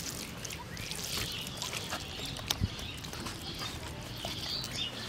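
A hand kneading and mixing wet, oily grain bait on a steel plate: soft squelching of the grains with small scattered clicks, and one sharp click about two and a half seconds in.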